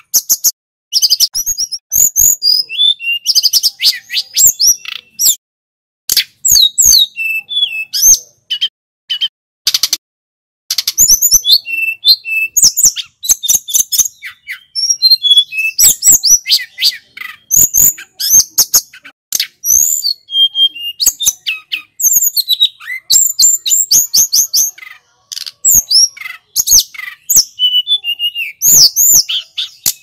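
Hill blue flycatcher (tledekan gunung) singing: a long run of fast, high, sweet whistles and trills in phrases a few seconds long, broken by short pauses.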